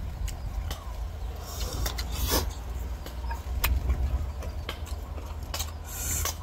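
Raw green mango being chewed close up: a scatter of sharp, crisp crunches over a steady low rumble.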